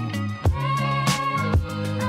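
Background music with a steady drum beat under held bass notes and a sustained melody.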